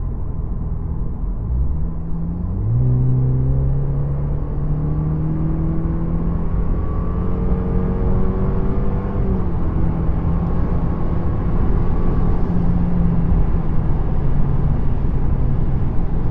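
Lexus IS with its muffler deleted, heard from inside the cabin with the windows up, accelerating at full throttle. The engine note climbs steadily, drops sharply about nine seconds in at an upshift, then pulls on again.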